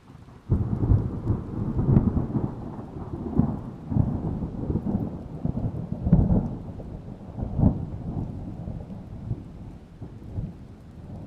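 Thunder: a sudden loud clap about half a second in, then a long rolling rumble that swells again and again and slowly dies away.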